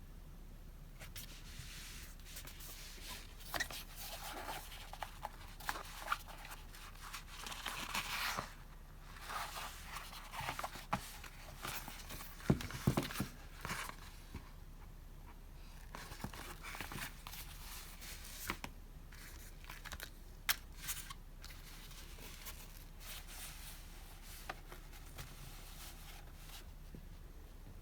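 Paper and packaging being handled during an unboxing of stationery: bursts of rustling and crinkling with small clicks and taps, busiest in the first half and thinning to occasional taps later on.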